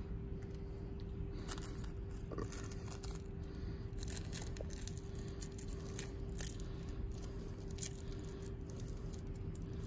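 Rolling paper rustling and crinkling between fingers as ground cannabis is rolled into a joint, in short scattered crackles. A steady low hum runs underneath.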